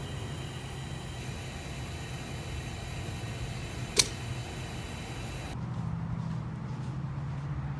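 Gas-station fuel dispenser running steadily during refuelling, a low hum with a faint high whine. A single sharp click comes about four seconds in, and near the end the hiss drops away, leaving a low outdoor hum.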